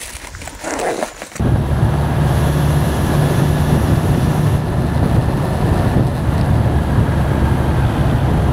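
Motorcycle riding at road speed: a steady low engine drone with wind and road noise, heard from a camera mounted on the bike. It sets in abruptly about a second and a half in, after a quieter moment.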